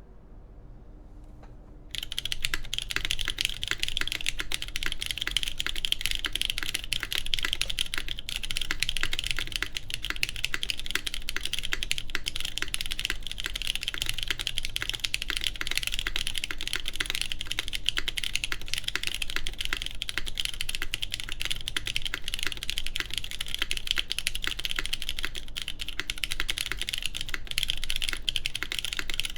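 Continuous fast typing on a Tech Bear TB8-TKL mechanical keyboard with lubed JWK Cotton Candy linear switches, GMK keycaps and an aluminum plate, starting about two seconds in.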